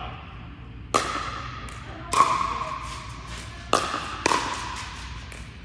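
Pickleball rally: a hard plastic ball struck by paddles, four sharp ringing pops over about four seconds, echoing in a large indoor hall. Fainter ticks come between the pops.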